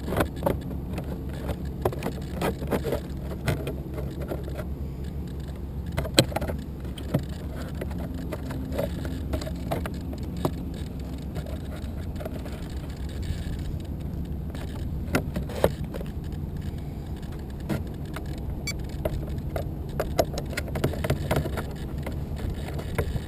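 Handling noise on a GoPro mounted on an RC helicopter: scattered clicks and knocks over a low steady rumble, with no motor or rotor running.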